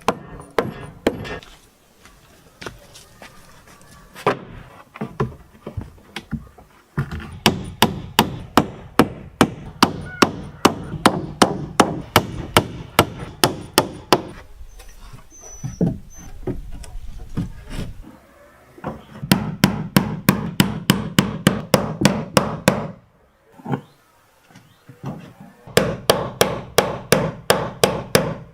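Hammer striking wood in three runs of quick, even blows, about three or four a second, with a few separate knocks between the runs.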